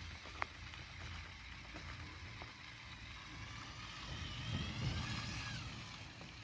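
Small electric motors of a LEGO Technic Control+ RC truck whining. The whine rises and falls in pitch and grows loudest about four to five and a half seconds in, over a low rumble. There is a sharp click about half a second in.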